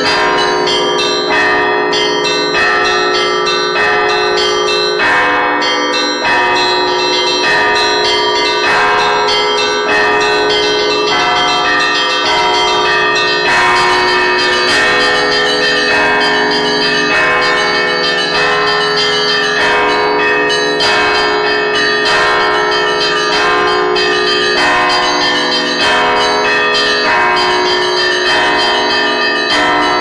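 Russian Orthodox church bells rung by hand with clapper ropes, heard close up in the belfry: a row of small bells struck in a quick, steady rhythmic pattern, their tones ringing on and overlapping over steady deeper bell tones.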